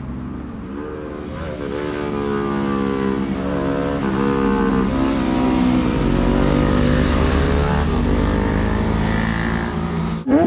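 Motorcycles riding through a bend, their engines getting louder to a peak about six seconds in, the engine notes rising and falling in pitch. The sound cuts off suddenly just before the end.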